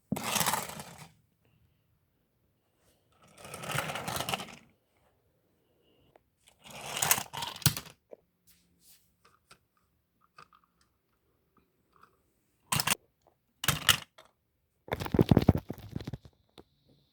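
Toy railway trucks being bumped and sent flying: a run of short scraping, clattering bursts with a couple of sharp knocks near the end.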